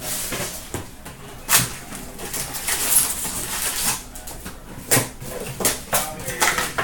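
Trading card pack wrappers being torn open and crumpled, with cards handled in between: a run of sharp crinkles and rustles, the loudest about a second and a half in and again at five seconds.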